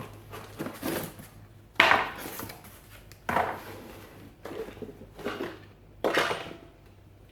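A series of about seven knocks and clunks from heavy small refrigeration compressors being lifted and moved about. The loudest knock comes about two seconds in.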